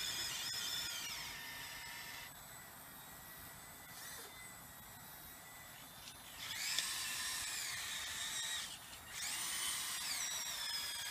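Small electric gear motors of an RC scale Cat 906 wheel loader whining as it drives into a dirt pile and works its screw-driven boom and bucket. The high whine sags and bends in pitch under load, fades about two seconds in, then comes back louder from about six and a half seconds in with a brief break near nine seconds as the loaded bucket is lifted.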